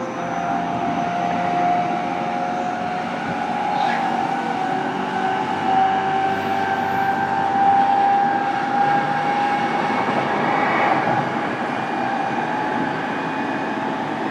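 E233 series electric train running, heard from inside a motor car: the traction motor and inverter whine rises slowly in pitch as the train gathers speed, over a steady rumble of wheels on rail.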